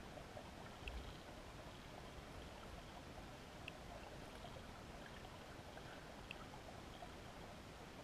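Faint, steady underwater ambience of a river, heard through a GoPro's waterproof housing: a low, even water hiss with a few faint clicks about every three seconds and a soft low bump about a second in.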